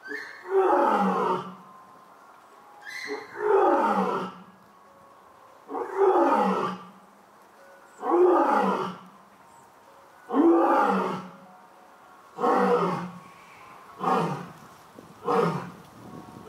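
An elderly 25-year-old lion roaring in a bout of about eight roars, a couple of seconds apart. Each roar falls in pitch, and the last few are shorter.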